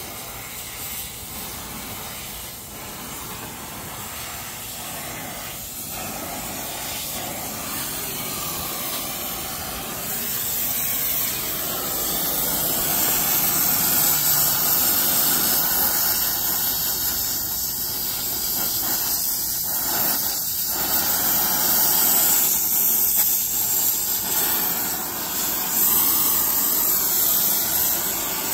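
Brazing torch flame hissing steadily as it heats a copper pipe joint, growing louder about ten seconds in.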